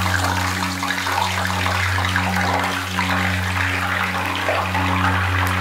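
Cubed aubergine (eggplant) frying in hot olive oil in a small pan: a steady, dense sizzle and bubbling. A steady low hum runs underneath.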